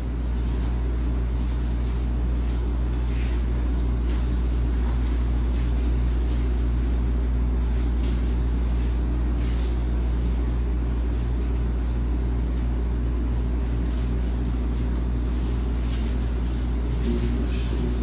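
A steady low hum, unchanging throughout, with no speech over it.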